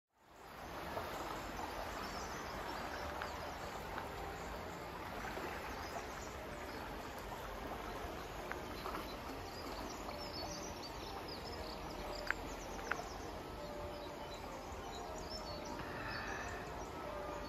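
Outdoor ambience fading in: a steady background hum with small birds chirping now and then. Two sharp clicks about twelve seconds in, half a second apart, are the loudest sounds.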